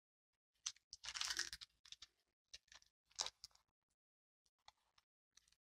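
Faint handling noises of a plastic water bottle: scattered light clicks and taps, with a short rustle about a second in and a sharper click a little past three seconds.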